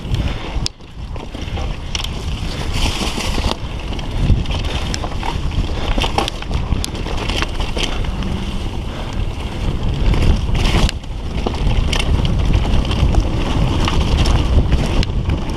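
Mountain bike descending a rough dirt trail: steady wind rush on the microphone over tyre noise, with scattered knocks and rattles from the bike as it drops over ledges and roots.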